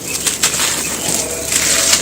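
Dry, handmade cement cups or balls being crushed by hand, crumbling with a gritty, crunchy crackle of many small cracks that grows louder about one and a half seconds in.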